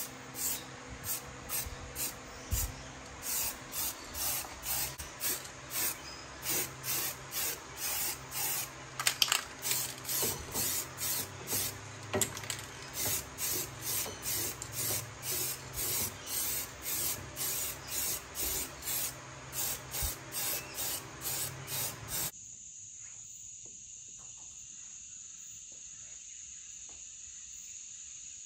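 Aerosol spray-paint can sprayed in short repeated bursts, about three every two seconds, over a low steady hum. The spraying cuts off about three-quarters of the way through, leaving a faint steady high-pitched hiss.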